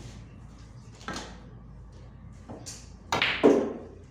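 Hard clacks of sinuca balls on the table: a couple of light knocks, then a louder, longer clatter about three seconds in.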